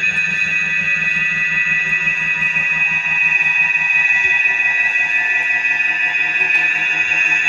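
Loud, steady drone of many held high tones over a fast buzzing pulse, unchanging throughout: a digitally stacked, distorted sound effect rather than a real-world source.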